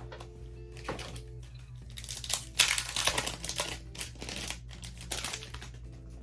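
Foil Pokémon booster pack wrapper crinkling as it is handled and opened, in a run of rustles lasting a few seconds, with soft background music underneath.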